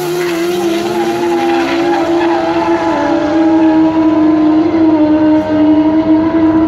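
Turbocharged Yamaha drag-racing snowmobile running at full throttle down a drag strip after launching. Its engine note climbs over the first few seconds and then holds high and steady while the sled pulls away.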